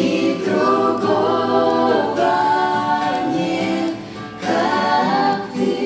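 A family of children and adults singing a Russian-language Christian worship song together, with acoustic guitar accompaniment. There is a short break between sung phrases about four seconds in.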